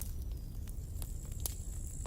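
Campfire burning, with scattered sharp crackles and pops over a low steady rumble. About a second in, a thin high whistle sets in and holds.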